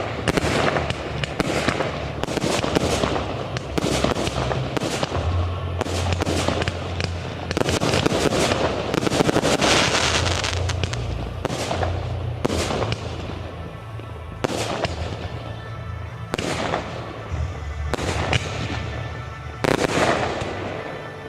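Aerial fireworks shells bursting in quick succession, sharp bangs with crackling tails, densest about halfway through and thinning out toward the end.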